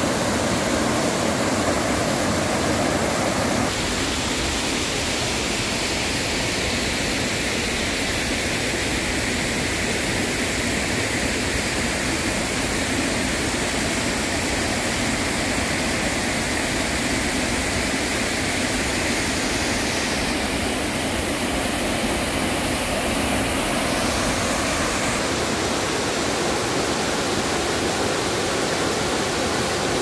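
Mountain stream rushing over rocks, a loud, steady wash of water. Its tone shifts a few times, about 4 seconds in and again around two-thirds of the way through.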